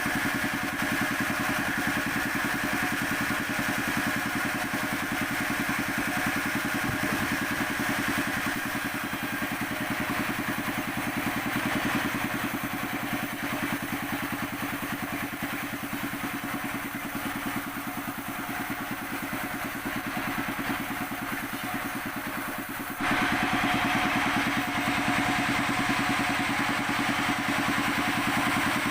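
Sawmill saw machine running steadily, its engine making an even pulsing drone. About 23 s in it abruptly gets louder and a higher-pitched whine joins in.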